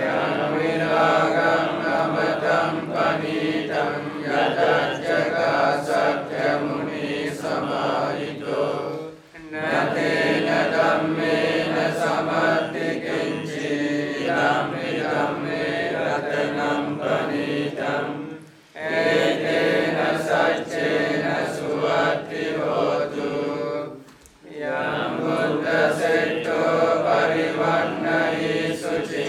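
Buddhist monks and lay followers chanting Pali verses together in a steady unison recitation. It breaks three times for a brief pause between verses.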